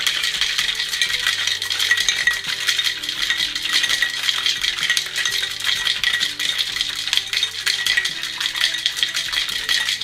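Four or five ice cubes rattling fast and hard inside a Boston shaker (metal tin sealed to a mixing glass) as a cocktail is shaken to chill it.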